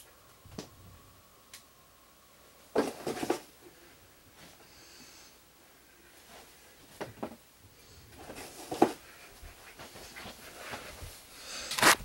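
Scattered rustles and knocks from handling, with a loud rustle and bump near the end as the camera is picked up.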